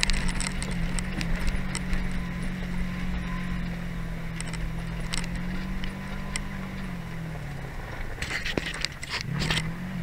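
A vehicle engine running steadily over a gravel road, with frequent rattling and clattering. The engine note drops away about seven seconds in, then rises briefly near the end.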